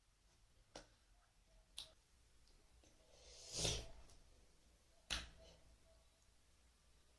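Faint sounds of a person eating a shawarma wrap: a few sharp clicks, and a short noisy swell, the loudest sound, about halfway through.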